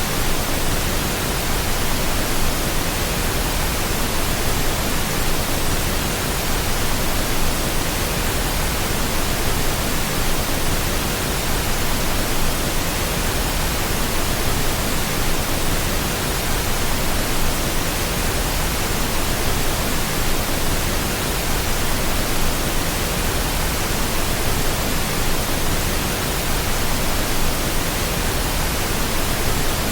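Steady, unchanging pink noise: an even hiss across the whole range, with no other sound.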